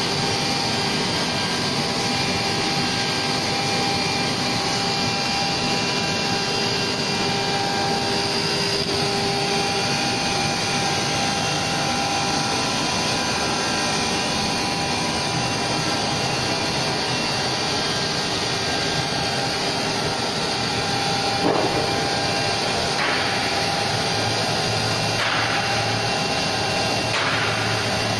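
CNC wood router with a multi-spindle drilling block and saw, running: a steady machine whine and hiss with several held tones. About three-quarters of the way through there is a sharp knock, followed by a few short hissing bursts.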